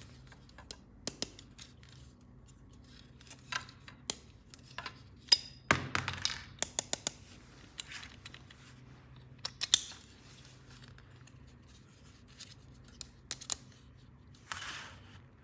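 Plastic toy pieces and packaging being handled: irregular sharp clicks and taps, with a quick run of them about five to seven seconds in and a short rustle near the end.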